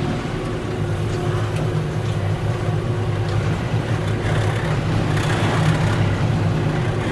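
Tractor engine running steadily under load with a constant low drone and a steady higher hum.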